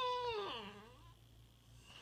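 Bulldog whining: one drawn-out call that slides down in pitch and dies away about a second in.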